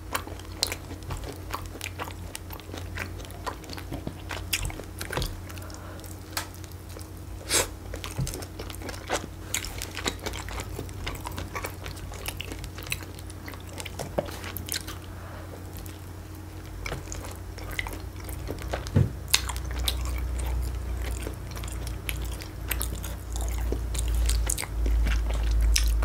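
Close-miked chewing and biting of thin-crust shrimp and pineapple pizza, with wet mouth clicks and crunches throughout. A low rumble comes in about two-thirds of the way through.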